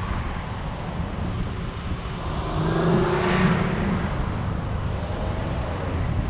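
Street traffic with a steady low road rumble. A vehicle's engine grows louder about two and a half seconds in, is loudest around three seconds, then fades with its pitch dropping slightly as it passes close by.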